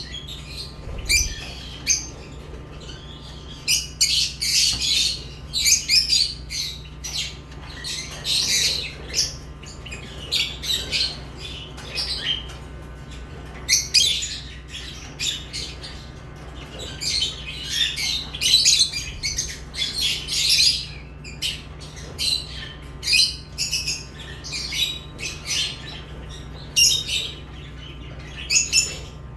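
Lovebirds chirping: many short, high calls in irregular clusters with brief pauses, over a steady low hum.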